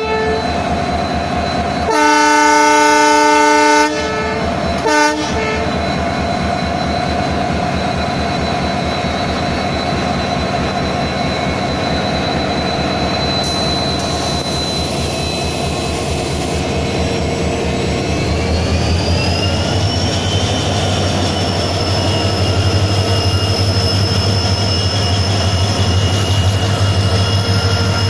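A consist of WDG4D diesel-electric locomotives rumbling past at low speed. The horn sounds one long blast about two seconds in, then a short toot. Later a whine rises in pitch and holds steady as the engines' low drone grows stronger.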